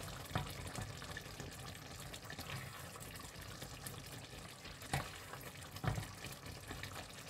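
Potato and pea curry being spooned from a pan onto a ceramic plate: faint wet scooping and sloshing of the thick gravy, with a few light clinks of the metal spoon, about half a second in, near five seconds and near six seconds.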